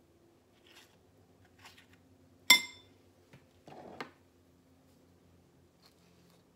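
A spoon strikes a glass bowl once about two and a half seconds in: a sharp clink that rings briefly. Soft scooping and handling of avocado lie around it, with a short scuffle ending in a click about four seconds in.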